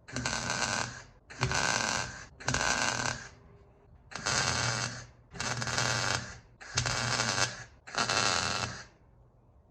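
Welder arc crackling in seven short bursts of about a second each, as the old mounting holes in a sheet-steel valance are filled over a copper backing plate that acts as a heat sink.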